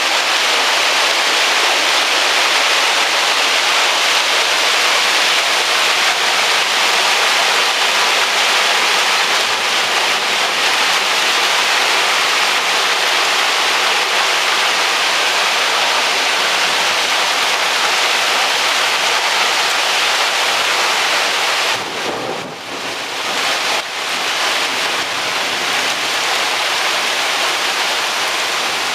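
Heavy rain pouring down in a thunderstorm, a steady dense hiss that dips briefly about three-quarters of the way through.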